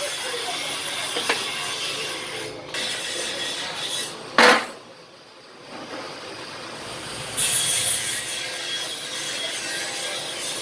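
Steady rasping and scraping of metalworking on the hammer. A brief loud burst comes about four and a half seconds in, then a short lull before the rasping resumes.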